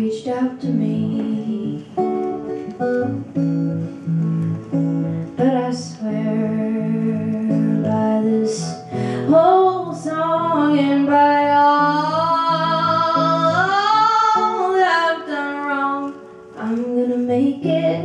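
A woman singing live to a steadily strummed guitar. In the second half she holds long notes with vibrato.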